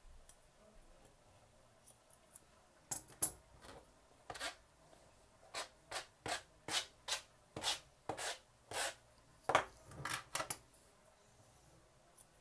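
A wooden-backed dog brush drawn through a Maltese's long, silky coat in quick strokes: about fifteen short swishes, roughly two a second, starting about three seconds in and stopping shortly before the end.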